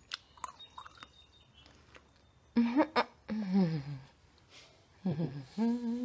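Someone chewing and crunching salted nuts, with small crunches and clicks, then two short wordless voiced sounds a couple of seconds apart.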